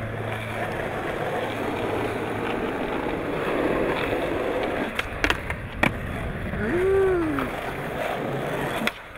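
Skateboard wheels rolling on smooth concrete with a steady rumble. A few sharp clacks of the board come a little past halfway and again near the end, and a brief rising-then-falling pitched sound falls between them.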